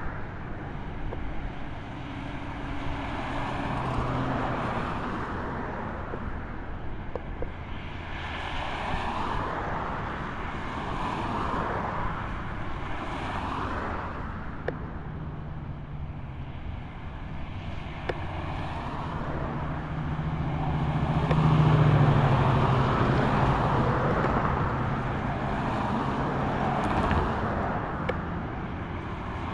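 Road traffic: cars passing one after another, each swelling and fading, with a louder vehicle with a low engine drone going by about three quarters of the way through.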